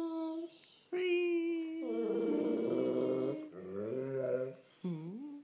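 A golden retriever howls along to a person's long, steady hummed note. The dog's howl comes in about two seconds in, wavering up and down in pitch, and ends with a short low swoop near the end.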